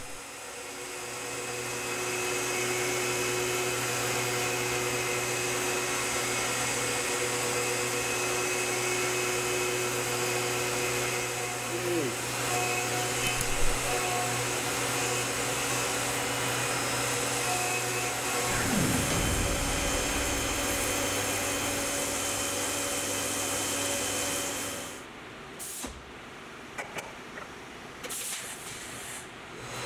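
CNC milling-machine spindle running as an end mill cuts an aluminium block under flood coolant: a steady whine over the hiss of the cut and the coolant spray, with two brief downward glides in pitch. About 25 seconds in the cutting stops, leaving a much quieter machine background with a few light clicks.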